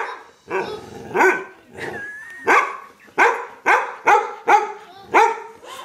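A pet dog barking over and over, about nine barks, coming quicker in the second half.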